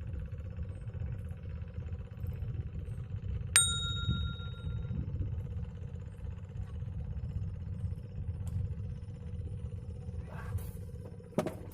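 A single short metallic ding that rings briefly, about a third of the way in. It sits over a steady low rumble with a faint steady hum, and there is a fainter click near the end.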